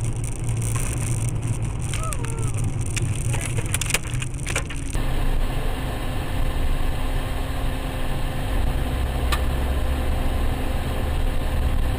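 Steady road and engine noise heard from inside a moving car on a winter road, with a run of sharp clicks and knocks in the first few seconds. About five seconds in, the sound changes abruptly to another car's steadier driving noise with a faint steady hum.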